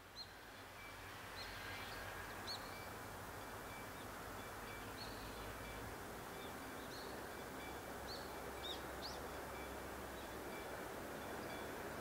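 Faint rural outdoor ambience, a steady hum of distant noise that swells up over the first couple of seconds, with small birds chirping every so often.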